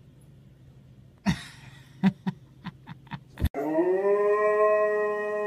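A few soft thumps and knocks. Then, about three and a half seconds in, a Siberian husky starts a long howl that rises briefly and then holds steady.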